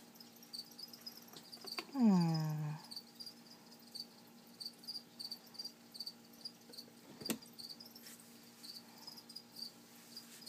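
Crickets chirping: a steady run of short, high chirps, about two a second. About two seconds in comes a louder, short sound that falls in pitch, and a single click follows about seven seconds in.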